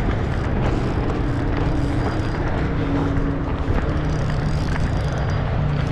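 Steady rumble of road traffic, with engine hums that drift slowly in pitch as vehicles pass.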